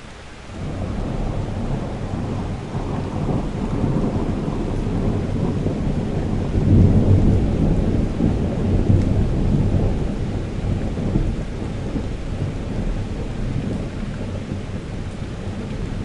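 Distant thunder over steady rain, heard through a half-open window. A long low rumble swells about half a second in, is loudest midway and slowly dies down while the rain keeps falling.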